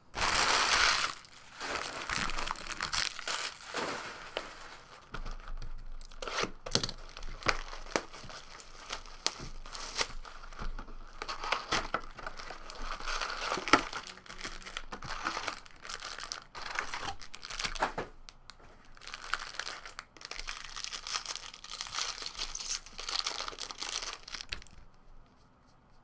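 Plastic wrapping crinkling and tearing as a sealed box of baseball card packs and its packs are torn open, with sharp crackles and clicks throughout. It stops about a second before the end.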